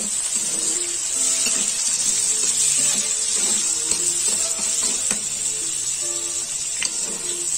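Chopped onions sizzling in hot oil in a steel karahi, with a few scrapes and clicks of the spatula against the pan as they are stirred. Background music plays over the frying.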